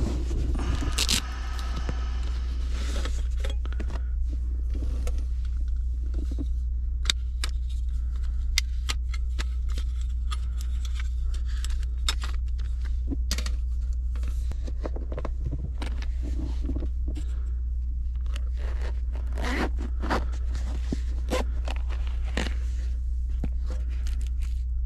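Handling sounds of camping gear: a run of light metal clicks and scrapes as a small folding metal stove is taken from a fabric pouch and unfolded, with a few louder knocks near the end. A steady low hum lies underneath.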